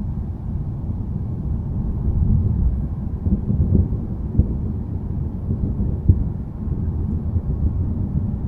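Low rumble of rolling thunder that swells and fades, with two brief sharper cracks about four and six seconds in.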